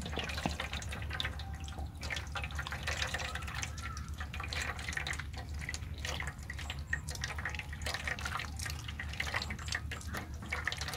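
Wet fermented fruit pulp squelching as it is squeezed by hand in a stainless mesh strainer, with the fermented fruit juice dripping and trickling into a steel bowl below: a steady run of small wet clicks and crackles.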